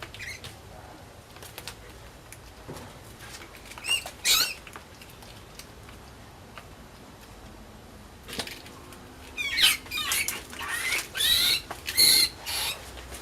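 Mouse squeaking: short high-pitched squeaks that slide in pitch, a couple about four seconds in, then a rapid cluster of squeaks through the last few seconds.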